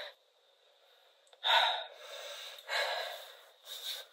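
A person's breathy gasps: near quiet at first, then three short sharp breaths, the first the loudest.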